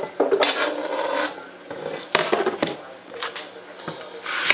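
Diced apple pieces scraped off a plastic cutting board and tumbling into a glass measuring jug, then a series of knife knocks and clatters on the cutting board as fruit is cut, the loudest near the end.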